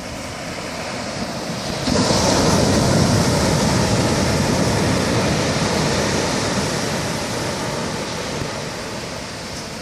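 A large ocean wave breaking: the surf noise builds, jumps sharply as the wave crashes about two seconds in, then the wash slowly fades away.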